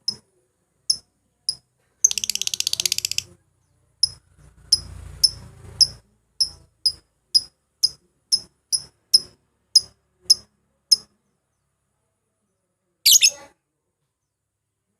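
Lovebird chirping: short, sharp, high-pitched chirps with a fast chattering trill about two seconds in, then a run of evenly spaced chirps about two a second, and a short harsh burst near the end.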